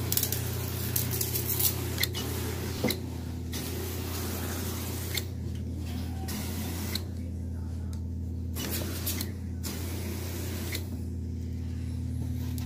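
An electric cleaning machine's motor runs with a steady, even hum, while scattered short clicks and knocks come from the tool working on carpeted stairs.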